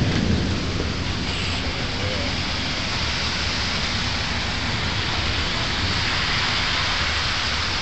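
Heavy rain pouring down onto a brick street and sidewalk, a steady, even hiss of the downpour.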